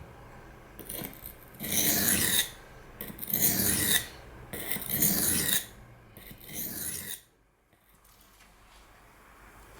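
CPM S30V steel knife blade pushed across a sharpening stone in four long grinding strokes, each about a second, then the strokes stop.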